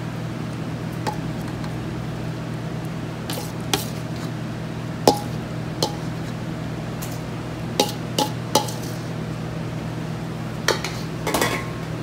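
Dishes and utensils clinking and knocking in short, separate strikes, about nine of them, a couple with a brief ring, over a steady low hum.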